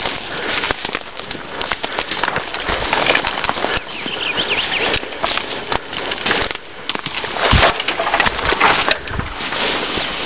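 Continuous crackling and rustling of brush and willow branches, with footsteps, as a person pushes through a thicket.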